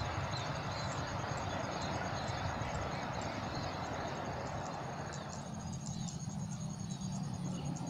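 Low rumble of a passing diesel-hauled train dying away, thinning about five seconds in and swelling slightly again near the end. A steady high insect trill and small bird chirps run over it.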